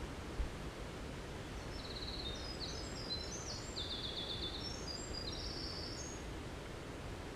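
Winter wren singing one long, rapid, high-pitched song of tumbling notes and fast trills, starting about a second and a half in and lasting about five seconds. It sits over a steady low background rumble, with a brief low thump near the start.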